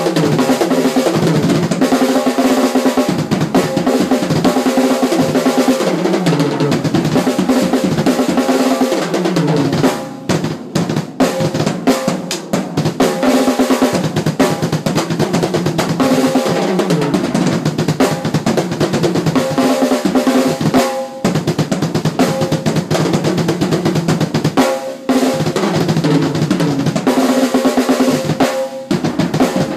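Drum kit played without cymbals: fast, busy snare and tom fills with bass drum, broken by a few brief pauses.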